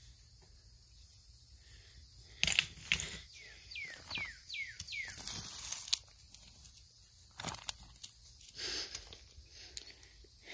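Rocks and chunks of coral being handled and knocked together while digging through a rock pile: a cluster of sharp clicks and knocks a couple of seconds in, with four short falling chirps among them, then a few scattered knocks later.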